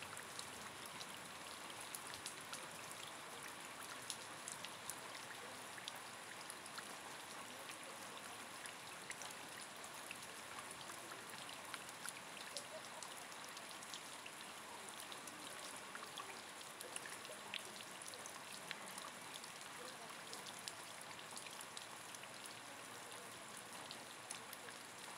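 Steady rain falling on a hard surface, with many single drops ticking through the hiss.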